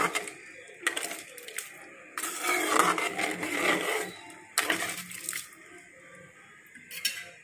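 Metal ladle scraping and clinking against a steel kadai while stirring a watery onion-tomato mixture, in several separate spells.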